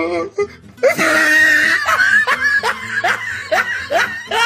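A person laughing hard in a quick run of bursts, about two to three a second.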